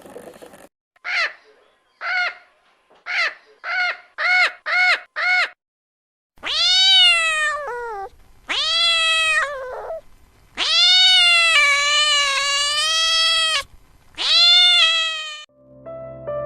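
Domestic cat meowing: a quick run of seven short mews, then four long, drawn-out meows, the third held for about three seconds.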